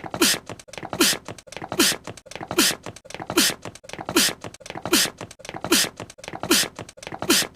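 One recorded anime character's sneeze played in a loop: about ten identical sneezes at an even pace, a little over one a second. Each is a brief falling "ha" followed by a sharp, hissing "choo".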